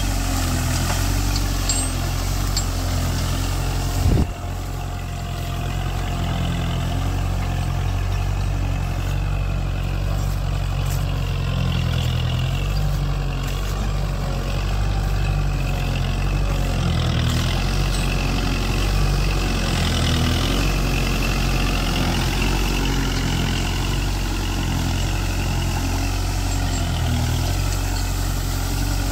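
Kubota MU4501 tractor's four-cylinder diesel engine running steadily under load as it pulls a tine cultivator through the soil. A single sharp knock is heard about four seconds in.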